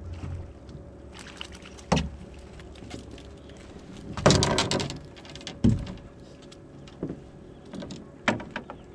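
A fish being netted beside a small fibreglass boat: a few sharp knocks of gear and the landing net against the hull, and a longer splashy burst about four seconds in as the net goes into the water.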